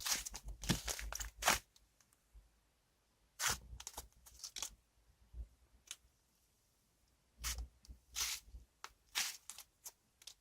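Cloud slime being stretched and pulled apart by hand, giving crisp crackling, tearing sounds in bursts: one at the start, another a few seconds in, a couple of single snaps, then more bursts near the end.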